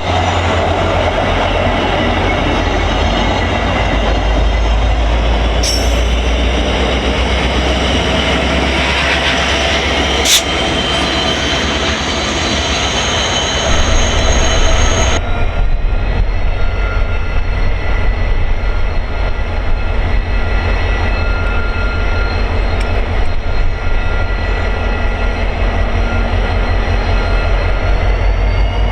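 VIA Rail passenger train rolling past at speed: a loud, steady rush of wheels on rail with a deep rumble and thin squealing tones from the wheels, easing a little about halfway through, and a squeal rising in pitch near the end.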